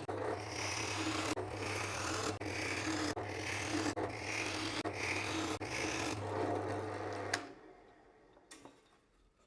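Repeated rasping strokes on wood, about one every three-quarters of a second, over a steady low hum; the strokes and the hum stop together a little past seven seconds in.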